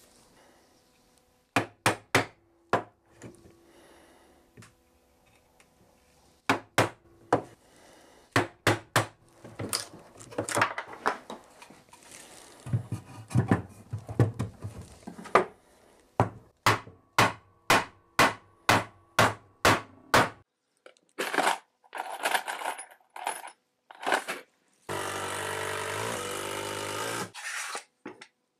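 Groups of sharp knocks on wood, with one stretch of even, rapid blows at about three a second. Near the end, a small motor runs steadily for about two and a half seconds.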